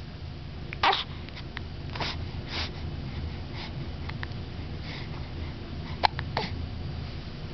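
A seven-week-old baby hiccupping: a series of short, sharp hics about once a second, the loudest about a second in, over a steady low rumble.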